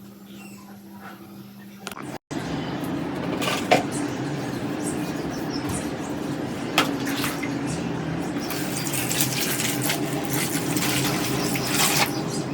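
Water running steadily, starting about two seconds in after a quieter stretch with a low hum, with a couple of sharp knocks of parts in the stream.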